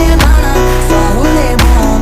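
Background music: a pop song with a heavy bass and a steady beat.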